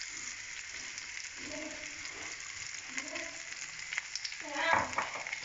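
Sliced onions frying in a pan, a steady sizzling hiss, with a short burst of voice about three-quarters of the way through.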